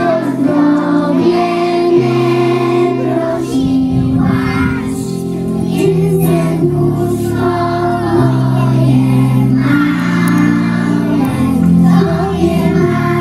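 A group of young preschool children singing a song together over an instrumental accompaniment with steady held bass notes.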